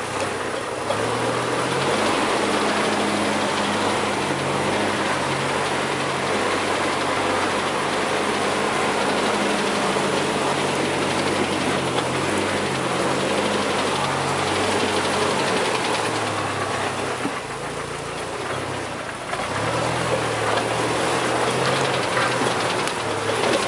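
Off-road 4x4 vehicle's engine running while driving, its pitch stepping up and down with the throttle, over a steady haze of tyre and rattle noise.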